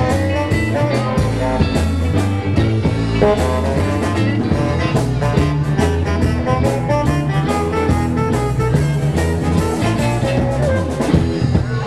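A blues-rock band playing a shuffle live: electric guitars over bass guitar and a drum kit, with regular drum hits under many guitar notes.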